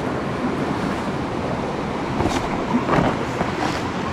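Steady rush of fast-flowing creek water, with a couple of faint knocks around two and three seconds in.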